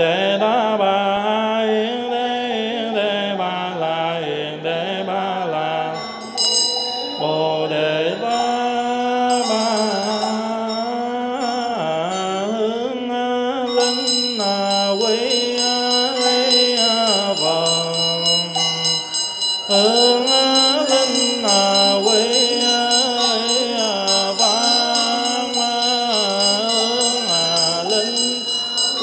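Vietnamese Buddhist liturgical chanting: a single voice sings long, drawn-out phrases that slide up and down in pitch. A small ritual handbell joins about six seconds in with a few strokes, then rings in rapid continuous strokes from about halfway on.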